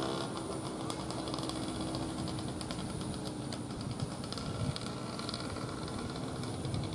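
Small engine of a homemade three-wheeled scooter running at a steady speed, holding one even engine note as the scooter drives across the field.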